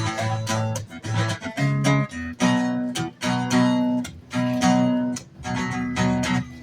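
Acoustic guitar strumming chords, an instrumental passage between sung lines, with the chord struck again about once a second.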